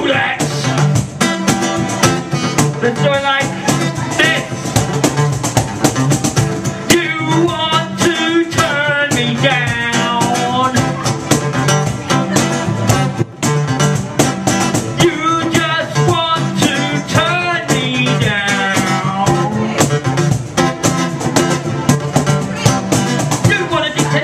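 Live music: a strummed guitar keeping a steady rhythm under a rapped and sung vocal through a microphone.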